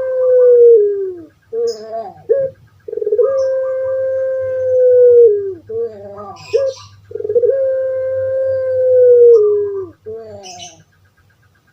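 Puter pelung dove (Barbary dove, Streptopelia risoria) singing its long coo. Each call is a loud, steady note held for about two and a half seconds that drops in pitch at the end, followed by a short burst of broken, gurgling notes. Two full calls follow the tail of one already under way, and the song stops near the end.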